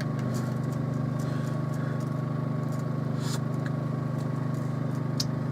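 Steady low mechanical hum, even in pitch and level, with a couple of faint light clicks.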